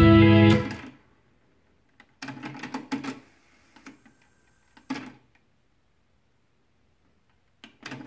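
Music playing from the tape cuts off about a second in. Then the Pioneer CT-W616DR cassette deck's logic-controlled tape transport clicks and whirs in three short bursts as it rewinds, stops and goes back into play.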